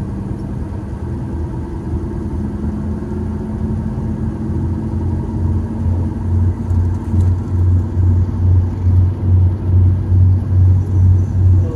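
Steady low engine and road rumble heard from inside a moving road vehicle. About halfway in, a low throb pulsing roughly twice a second sets in and grows louder.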